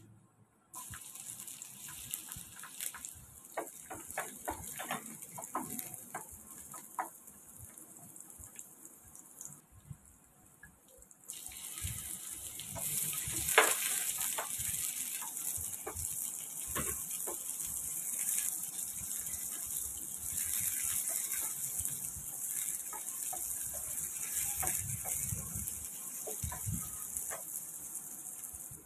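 Garlic and sliced onions sizzling in melted butter in a frying pan: a steady hiss with the taps and scrapes of a wooden spatula against the pan. The sizzle stops briefly about ten seconds in and comes back louder.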